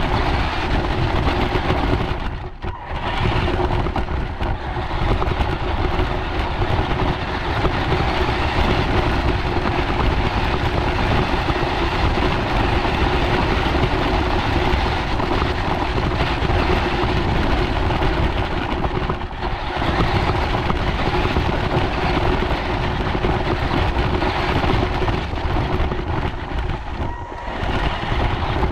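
Radio-controlled scale UTV running over dirt and grass, heard from on board. Its motor and gears give a steady whine over rough running noise, easing off briefly a few times.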